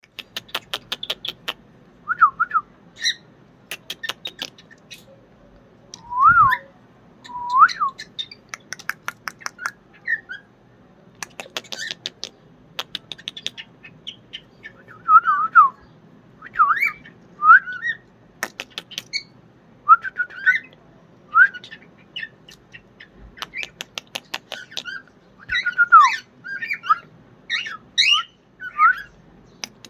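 Pet cockatiel whistling short notes that rise and fall, mixed with quick runs of sharp clicks.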